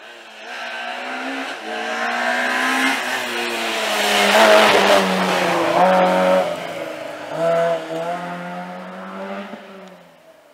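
Rally car passing by flat out: the engine revs up and drops back with each gear change as it approaches, is loudest as it goes past about four to five seconds in, and fades as it pulls away.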